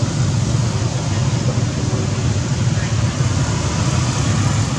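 Steady outdoor background noise: a loud low rumble with an even hiss above it, unchanging throughout.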